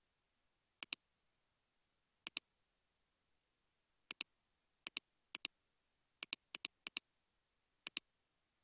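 Computer mouse button clicks: nine quick press-and-release double clicks at irregular intervals, sharp and high-pitched, with a cluster of four in quick succession about six seconds in.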